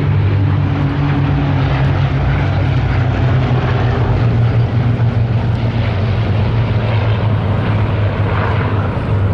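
A formation of Hawker Hurricane fighters flying past, their Rolls-Royce Merlin V12 piston engines giving a loud, steady drone.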